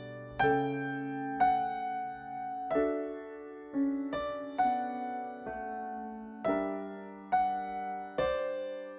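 Slow solo piano music, with notes and chords struck about once a second, each ringing and fading.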